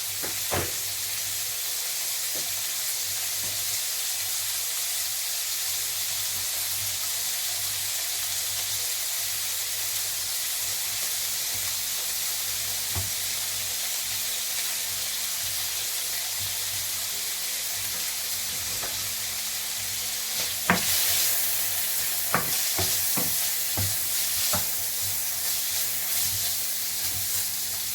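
Chicken pieces sizzling steadily in hot olive oil in a frying pan, with a few sharp knocks in the second half as the mixture is stirred.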